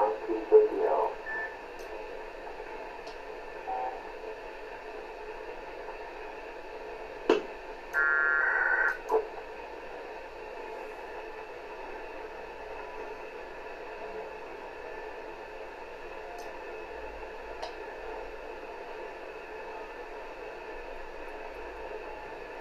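Q-MAC HF-90 frequency-hopping HF radio receiver giving a steady band-limited hiss through its speaker, with the end of a voice message in the first second. About eight seconds in, a loud burst of several steady tones lasts under a second, with a single click just before and just after it.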